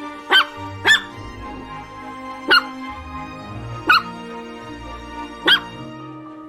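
A dog barking: five short, sharp barks, two close together near the start and the rest spaced a second or more apart, over steady background music.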